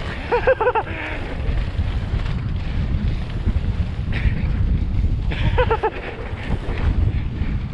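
Wind buffeting the microphone of a helmet camera on a mountain bike riding fast down a dirt trail, with a steady low rumble of tyres and bike rattling. Two short runs of three quick pitched squeaks or whoops cut in, just after the start and about five and a half seconds in.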